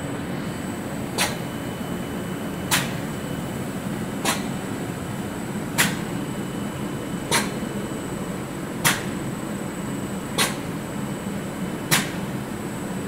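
Micro-gravure roll-to-roll coating machine running with a steady low hum and a thin high whine. A sharp click repeats at an even pace, about once every one and a half seconds.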